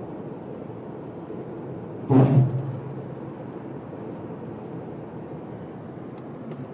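Steady road and engine noise heard from inside a moving car, with one sudden loud thump about two seconds in.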